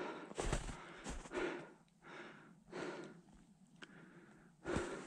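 A person walking through snow: irregular crunching steps and breathing, in short noisy bursts about once a second, pausing briefly near the end.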